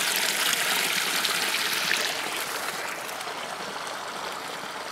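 Shallow creek water trickling and splashing over a low concrete drop-off into a rocky pool, a steady rush that grows gradually fainter.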